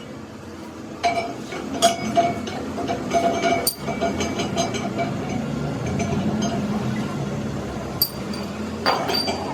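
Metal striking metal: a handful of sharp clanks with a ringing tail, clustered in the first few seconds and again near the end, over a steady low rumble.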